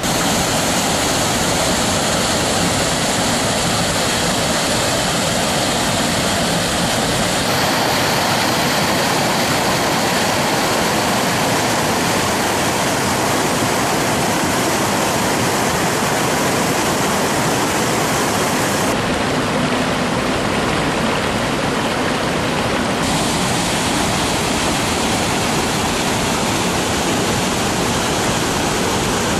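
Small waterfalls and rapids rushing over rocks: a loud, steady wash of water. Its tone shifts abruptly three times, about 7, 19 and 23 seconds in, as the sound jumps between spots along the river.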